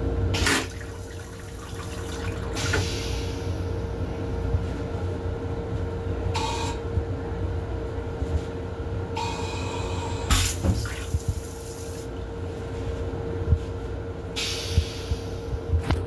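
Metro-North M7 railcar toilet flushing: rinse water hisses into the stainless-steel bowl in several separate spurts, the longest about three seconds, with a few sharp clicks as the bowl drains and refills. A steady hum and low rumble from the railcar run underneath.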